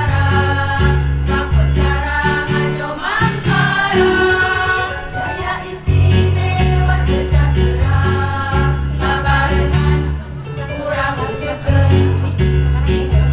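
Women's choir singing together over an instrumental accompaniment with a steady bass line.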